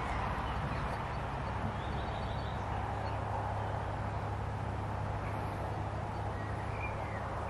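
Steady outdoor background noise with a few faint bird chirps, once about two seconds in and again near the end.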